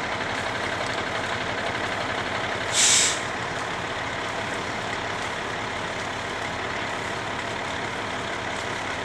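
A heavy truck engine running steadily, with a sharp half-second hiss of air, like an air brake letting off, about three seconds in.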